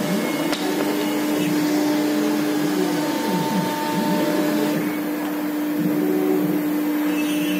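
A 1325 CNC router with a 5.5 kW spindle running without cutting: a steady motor hum with one strong steady tone over a whirring noise.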